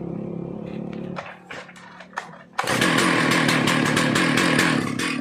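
Stihl MS 660 chainsaw's two-stroke engine running at idle, going quieter for a moment with a few clicks, then revved hard about halfway through and held at high throttle.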